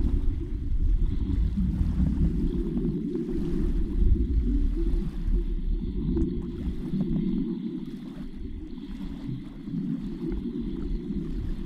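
Steady low underwater rumble of water, recorded with the microphone submerged, with faint scattered ticks and clicks over it.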